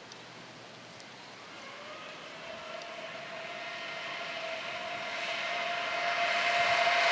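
Traxxas Rustler 4x4 VXL RC truck on a 3S top-speed run. Its electric motor's whine climbs in pitch as it accelerates, starting about a second and a half in, then holds one steady note while it grows louder and louder as the truck approaches at full speed.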